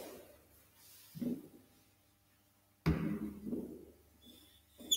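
Marker squeaking on a whiteboard as a letter is written: a thin, steady high squeak through the last second, after mostly quiet stretches broken by two brief soft sounds.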